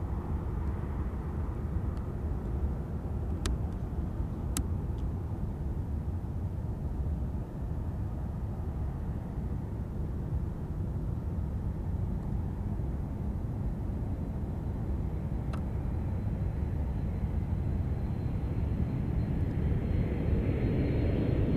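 Jet engines of a four-engine KC-135 Stratotanker moving along the runway toward the listener: a steady low rumble that slowly grows louder, with a thin high engine whine coming in past the middle. Two brief sharp clicks a few seconds in and another past the middle.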